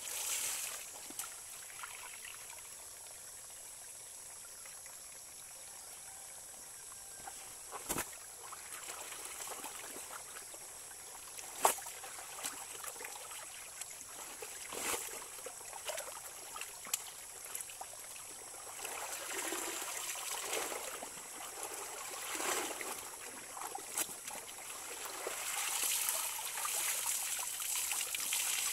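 Shallow stream running over stones, with water splashing and pouring off wet clothes as they are dunked and lifted, the splashing building up in the second half. A few sharp knocks stand out, the loudest a little before the middle.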